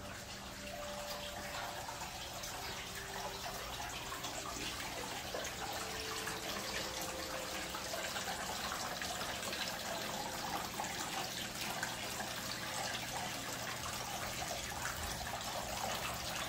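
Water trickling and splashing down the tiers of an indoor rock cascade fountain: a steady, fine patter of falling water that grows a little louder a few seconds in.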